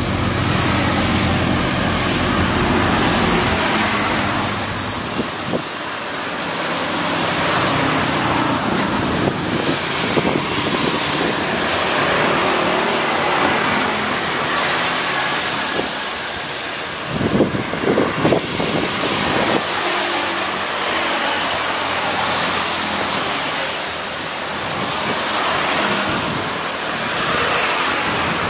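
Road traffic passing close by: an engine's low rumble at the start, then a steady rush of passing vehicles, with a short louder burst about two-thirds of the way through.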